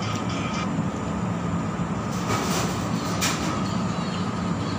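Noodle soup being eaten with a spoon from a bowl, with a few short slurps or spoon sounds about two to three seconds in, over a steady mechanical hum.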